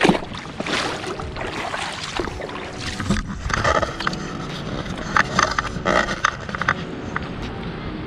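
Scraping and knocking noises from footsteps on shore rocks and from handling the camera, loudest right at the start and in a cluster in the second half. A low steady hum runs underneath.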